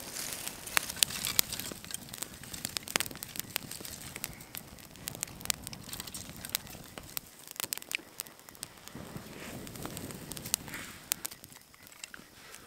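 A dry grass tinder bundle and thin twigs catching alight, crackling and popping irregularly over a steady hiss of flame, while sticks are laid onto the fire by hand.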